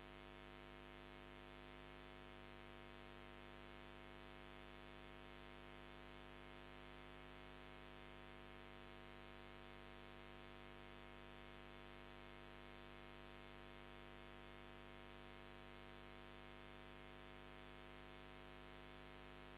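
Near silence with a faint, steady hum made of many even tones, unchanging throughout.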